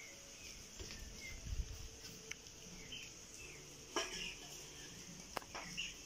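Quiet background of a steady, high insect drone with scattered short bird chirps, broken by a couple of sharp knocks about four and five and a half seconds in.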